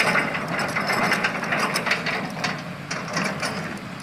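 Dense mechanical rattling and clicking, loudest in the first half and easing off toward the end.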